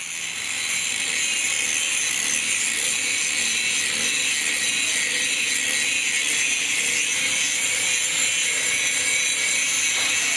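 Handheld power grinder with an abrasive disc grinding paint off a steel mounting bracket down to bare metal, a steady high-pitched hiss and whine of metal being ground that comes up to full level within the first second.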